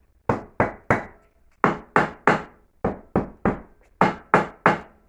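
Hammer blows on the brickwork of an old fireplace being broken apart: about a dozen sharp knocks, mostly in quick sets of three with short pauses between.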